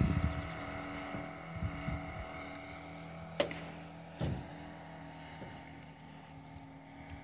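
Engine of a radio-controlled Stearman biplane model droning steadily at constant throttle while in flight, fading slightly towards the end. There are low gusts of wind on the microphone in the first couple of seconds and one sharp click about three and a half seconds in.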